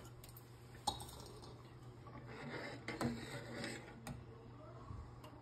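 A few faint clicks of a steel spoon against a stainless-steel pot as simmering gravy is stirred, the clearest about a second in and about three seconds in, over a faint low hum.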